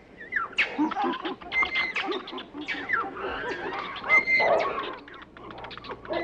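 Animal calls: many short calls overlapping one another, some gliding up or down in pitch, loudest in the middle.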